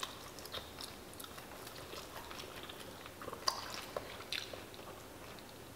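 Someone biting and chewing a crisp fried roll, with scattered small crunches against a quiet room.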